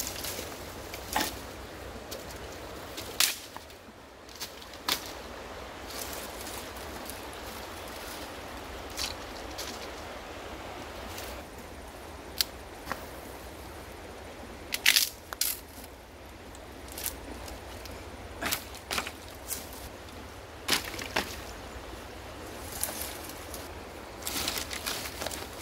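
Dry sticks and branches snapping and cracking as they are broken by hand, with sticks clattering onto a pile; a scattered string of sharp cracks, the loudest about halfway through and a quick cluster near the end.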